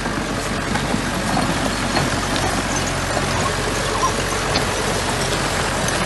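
Small bulldozer's engine running steadily, with faint clicks and clatter over the engine noise.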